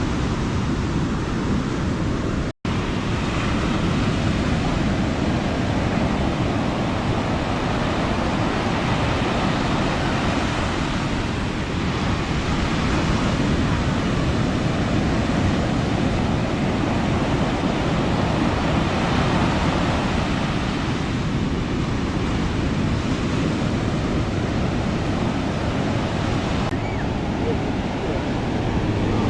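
Ocean surf washing onto the beach, a steady rushing with slow swells in loudness, cut by a split-second dropout about two and a half seconds in.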